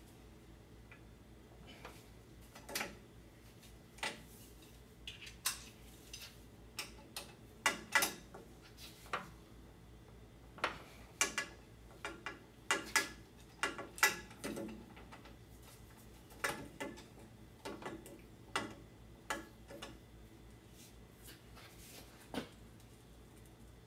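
Torque wrench ratcheting in short strokes on the driveshaft bolts of a Ford E350, with irregular metallic clicks and clinks of the tool on the fittings as the bolts are tightened to 55 ft-lb.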